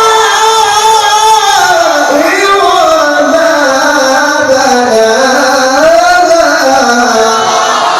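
Male Quran reciter (qari) chanting one long, unbroken melismatic phrase in a high, ornamented register. His voice sways through trills and turns, dipping lower about two seconds in and sinking again near the end.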